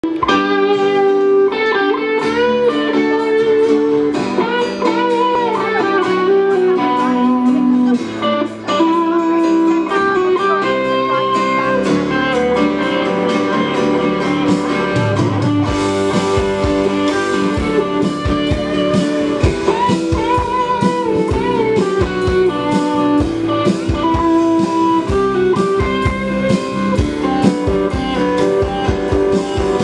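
Live rock band playing an instrumental passage, an electric guitar melody over bass, keyboard and drums. About halfway through, the drums and bass come in harder with cymbals.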